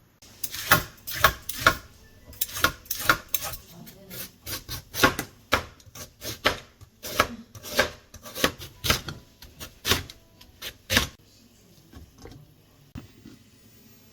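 A knife chopping on a cutting board: a run of sharp knocks, about two a second, that stops about eleven seconds in.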